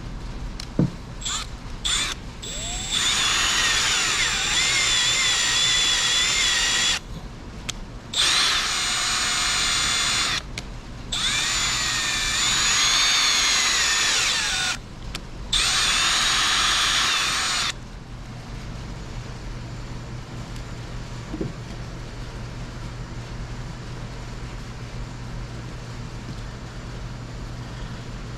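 A power drill bores into a cast-iron engine block: a few short blips, then four runs of a few seconds each with a high, wavering whine from the bit cutting metal. After the drilling stops, a steady low hum goes on.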